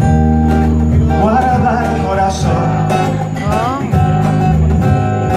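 Live unplugged band playing a slow song: sustained guitar and keyboard chords under a melody that glides between notes.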